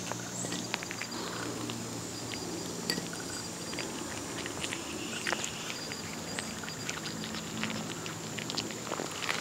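Cat licking and chewing flaked tuna from a bowl: irregular small wet clicks and smacks of its tongue and jaws, over a steady thin high tone in the background.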